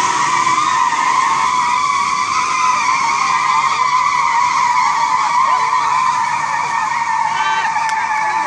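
Pickup tyres spinning and squealing against the road in a tug of war between a Toyota Hilux and a Ford Ranger strapped tail to tail: a loud, steady squeal that sinks slightly in pitch toward the end.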